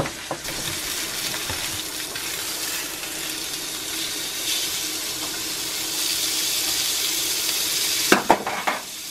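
Steak and bacon strips sizzling steadily in hot bacon grease in a cast iron skillet, with a couple of brief knocks near the end.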